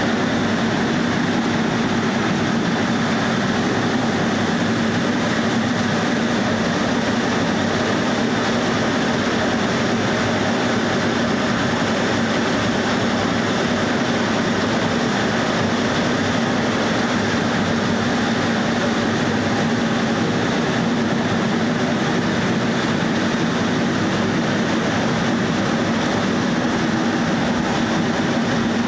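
Trough pulp beater running, its beating roll churning paper pulp around the trough: a loud, steady mechanical churn with a constant low hum.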